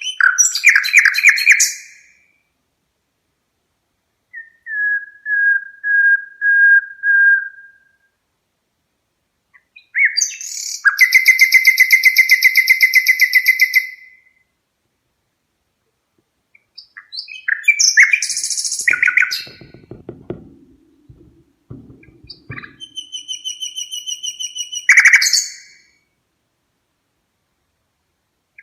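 Red-rumped parrot singing: several separate phrases of bright, rapid trills and whistled notes with pauses between them, including one long trill near the middle and a short series of falling notes. A lower, rough sound comes in briefly about two-thirds of the way through.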